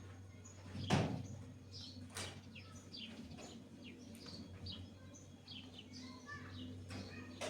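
Small birds chirping in short, repeated calls over a steady low hum, with a thump about a second in and a sharper knock a second later.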